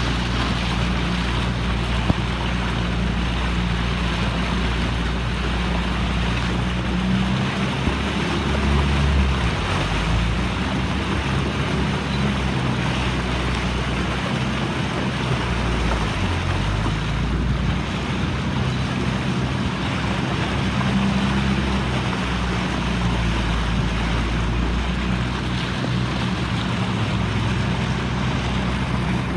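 A small boat's motor running steadily as the boat moves through floodwater, its low note rising and falling slightly a few times, with water rushing past the hull and wind buffeting the microphone.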